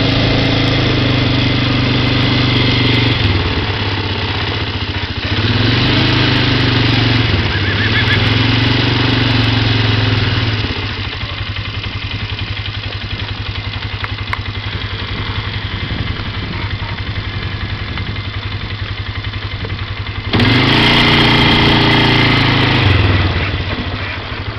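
An engine running steadily and revved up and back down several times, with a quieter idling stretch in the middle.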